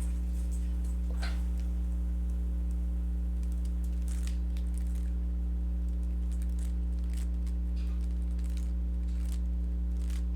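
Steady low hum, with scattered faint clicks and clacks of a Rubik's cube's layers being turned.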